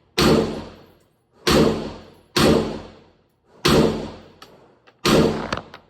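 Galil ACE Gen 1 5.56 rifle firing five single shots, roughly a second apart, each shot sharp and dying away over most of a second.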